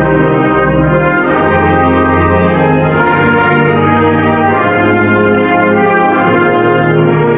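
Student symphonic band playing a concert-band piece, with the brass prominent in full, sustained chords that shift every second or so.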